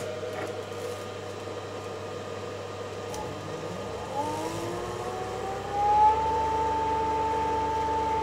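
Electric motor of an HPM 5000 EV kit spinning up: about four seconds in, a whine rises in pitch and levels off to a steady high whine. Under it, the controller's cooling fans hum steadily throughout.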